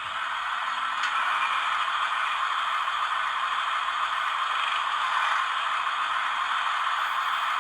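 Sound decoder of a Fleischmann N gauge diesel multiple unit playing a diesel engine idling steadily through the model's small onboard speaker, thin and with little bass.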